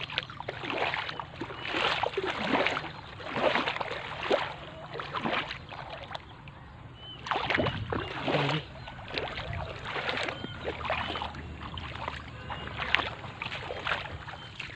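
Footsteps of a person walking through dry grass and brush, a rustling crunch about once a second.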